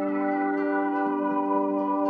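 Background music of slow, sustained keyboard-like chords.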